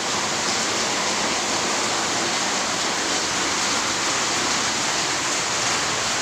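Heavy typhoon rain pouring down, a steady, unbroken rushing hiss.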